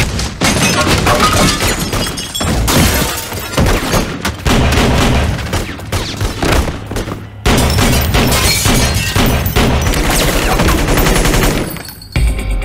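Film shootout sound effects: sustained, dense gunfire with bullets tearing through the room and throwing up debris. There is a short break about seven seconds in, and the firing stops near the end, giving way to a low drone.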